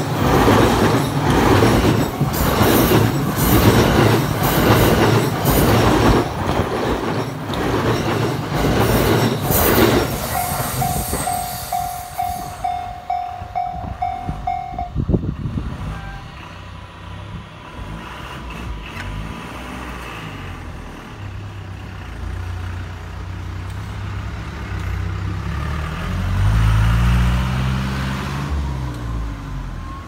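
A JR E217 series electric train passes close by, its wheels clacking regularly over the rail joints, until about a third of the way in. The level crossing warning bell then rings on alone at about two strikes a second and stops about halfway through. Near the end a motor vehicle's engine rises and falls as it passes.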